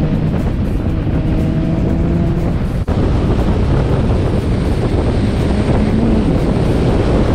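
Car engine running steadily under road and wind noise from a moving car, with a brief drop in level a little before three seconds in.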